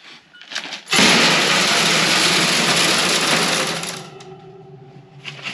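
Mixed grain feed poured into a galvanized sheet-metal feed trough: a loud, dense rattling hiss that starts about a second in and lasts about three seconds, then dies down.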